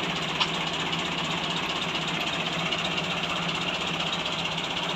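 Diesel tractor engine idling steadily, with a single sharp click about half a second in.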